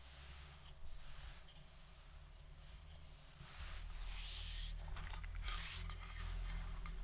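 Mechanical keyboard with Cherry Vintage Black linear switches being typed on: scattered keystroke clacks, sparse at first and more frequent in the second half, with a soft rustling hiss between them.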